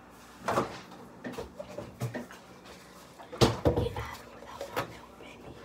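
Knocks and clatter of kitchen things being handled and set down on a counter, with the sharpest knock about three and a half seconds in.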